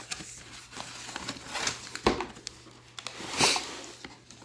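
A cardboard box being opened and its packaging handled: rustling and scraping of cardboard and paper, with a sharp knock about two seconds in and a louder scrape about a second later.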